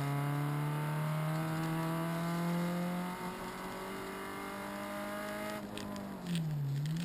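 Renault Clio RS rally car's four-cylinder engine, heard from inside the cabin, pulling hard with the revs climbing steadily. About three seconds in the note changes and gets a little quieter, then keeps rising slowly. Near the end the revs dip sharply and pick up again, with a short burst of noise.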